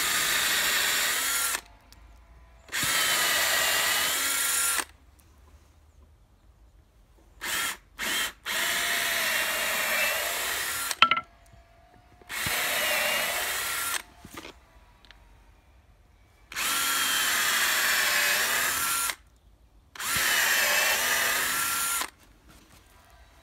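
Cordless drill boring pilot holes into a peeled log, running in about six separate bursts of around two seconds each with short pauses between; the motor's pitch sags as the bit bites into the wood and recovers. The holes are drilled first so the large screws driven in later do not split the log.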